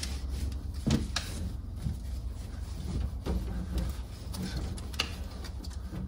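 A cloth rubbing and wiping over a water heater's corrugated supply hoses and fittings, with a few small knocks, over a steady low hum.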